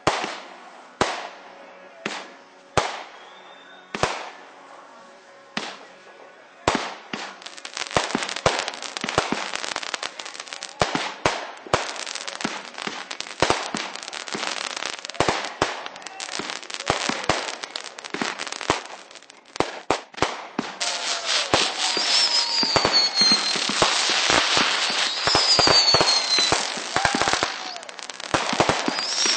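Fireworks going off: single sharp bangs about a second apart, then from about seven seconds in a dense barrage of rapid crackling reports. Near the end, high whistles falling in pitch sound over the barrage.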